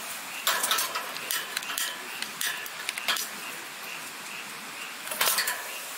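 Kerosene heater being lit with a long-nosed lighter: irregular short clicks and small metal rattles from the lighter and the heater's burner and wire guard, over a faint steady hiss.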